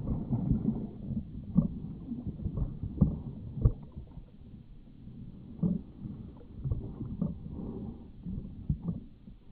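A long-handled metal sand scoop digging into a shallow lake bed: irregular water sloshing and splashing, with a few sharper knocks as it is pushed and lifted through the water.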